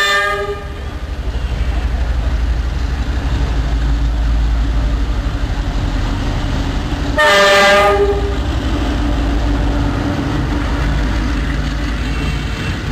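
Dongfeng 4 (DF4DK) diesel-electric locomotive approaching and passing with a freight train, its diesel engine rumbling steadily throughout. The locomotive's horn sounds twice: the end of one blast just at the start, and a louder blast of about a second roughly seven seconds in.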